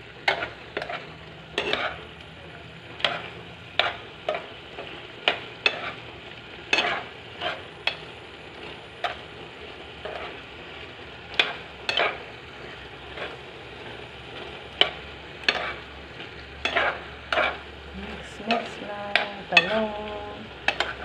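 A spatula scraping and knocking against a wok as vegetables are stir-fried, in irregular strokes about one to two a second over a steady sizzle.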